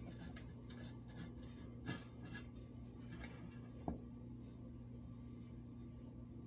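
Faint scratching of a marker drawing a cut line on a Buddy L GMC pressed-steel toy cab along a steel square, with two light clicks, about two and four seconds in. A steady low hum sits underneath.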